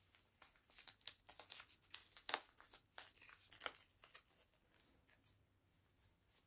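White packaging sleeve around a shipped plant crinkling as it is handled, in a run of short crackles, the loudest about two seconds in, dying away over the last couple of seconds.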